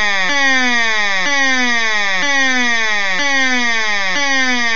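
Electronic siren circuit played loud through a Velleman K4001 7-watt amplifier and a small speaker at maximum volume. It makes a harsh, buzzy tone that falls in pitch over about a second, then snaps back up and repeats, about once a second.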